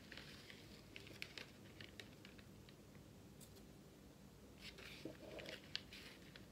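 Faint light ticks and soft rustling as a thin metal spatula taps and scrapes powder onto a sheet of paper on a scale and a small plastic bag of powder is handled. The ticks are scattered in the first few seconds; a brief rustle comes about five seconds in.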